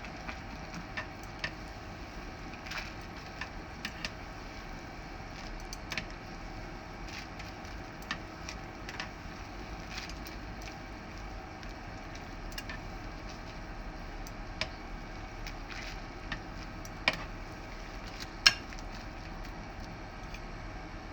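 Scattered clicks and knocks of kitchen utensils and cookware over a steady background hiss, with two louder knocks near the end.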